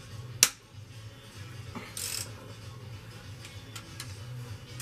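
Hand wrench working the bolts on a Jeep Liberty CRD diesel's cylinder head: one sharp metallic crack about half a second in, then a short rasp around two seconds and a few light ticks of the tool.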